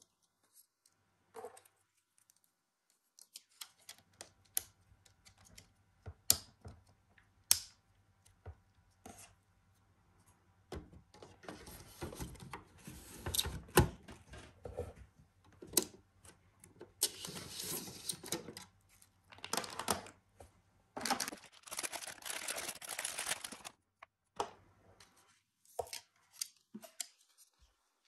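Plastic clicks, snaps and scraping of a NAS's tool-less drive tray and a 3.5-inch hard drive being fitted together and slid into the drive bay. Scattered sharp clicks come first, then after about ten seconds a busier stretch of rustling and scraping lasts about a dozen seconds.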